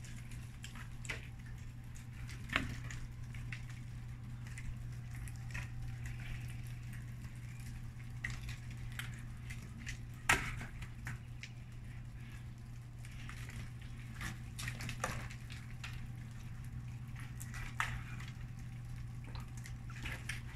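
Clumps of wet snow dropping from tree branches and landing as scattered soft pats and taps, irregular and unhurried, the loudest about ten seconds in. A steady low hum runs underneath.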